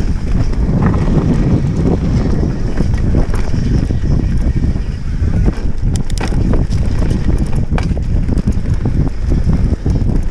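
Wind buffeting the microphone over the rumble of mountain bike tyres rolling fast on a dirt trail, with a few sharp rattles from the bike over bumps, about six and eight seconds in.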